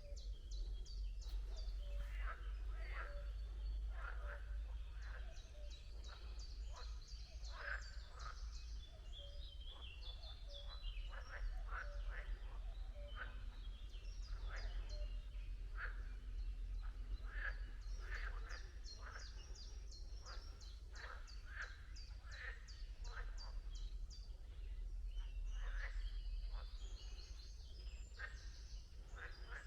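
A chorus of frogs calling, many short calls repeated and overlapping without pause, with a steady low rumble underneath.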